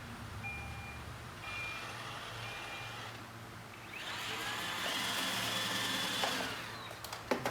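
iRobot Roomba 860 robot vacuum beeping three times about a second apart, then a motor whirring with a whine that climbs and then holds for about three seconds, ending in a couple of sharp clicks.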